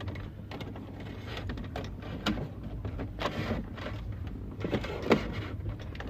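Hands working a cable and plastic dash trim inside a car: scattered rustling and clicking, with a sharper knock about two seconds in and another about five seconds in.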